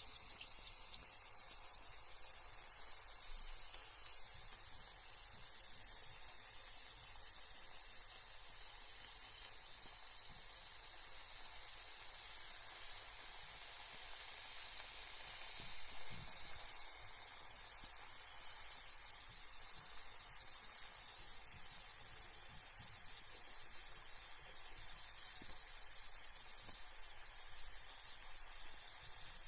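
Carbonated bath bomb fizzing in bathwater: a steady, high hiss of tiny bubbles.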